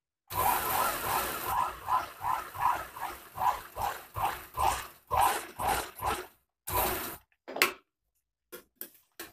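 Motor-driven Merritt sewing machine stitching a zipper onto denim. It runs for about six seconds with a pulsing beat of two to three a second, then stops. A few clicks and knocks follow as the work is handled.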